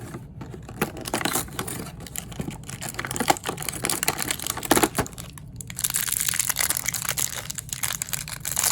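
Plastic packaging of a small toy figure being crinkled and torn open by hand: a run of irregular crackles and crumples with sharp snaps, busiest in the second half.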